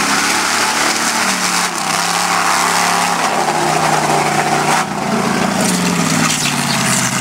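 Modified off-road 4x4 engine revving hard at high throttle, the revs rising and falling as the truck drives through mud and dirt. A brief drop in loudness about five seconds in.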